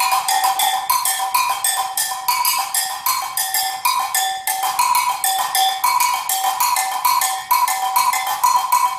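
Agogô bells, a pair of bells pitched high and low, struck with a stick in a fast samba pattern, the strokes alternating between the low bell and the high bell.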